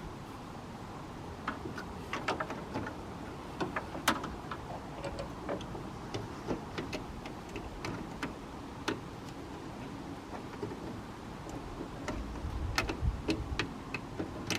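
Irregular light clicks and taps of hand tools and small parts being handled during work on a van's turn-signal lamp, with a brief low rumble about twelve seconds in.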